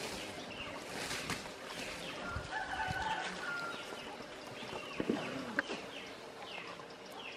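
Palm fronds rustling and snapping as an Asian elephant feeds on them, over outdoor birdsong. A drawn-out bird call is held for about a second, starting about two seconds in.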